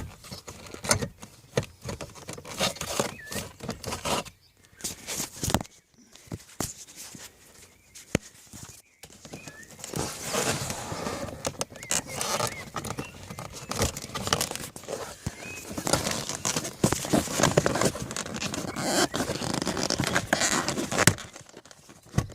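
Plastic dashboard trim being handled and worked loose by hand: irregular clicks, scrapes and rustling. It is sparser at first and busier from about halfway.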